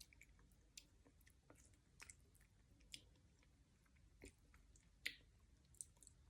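Faint mouth sounds of someone chewing durian flesh: soft wet smacks and clicks about once a second, the loudest about five seconds in.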